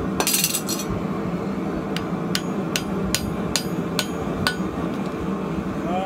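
Hand hammer striking a hot iron loop on a steel anvil: a quick metallic rattle of light taps about a quarter second in, then seven ringing blows at about two and a half a second, starting two seconds in. A steady hum runs underneath.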